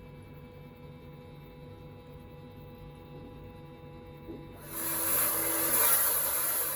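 A low steady hum, then a gust of wind rises suddenly a little over two-thirds of the way in, a loud rushing hiss that holds to the end.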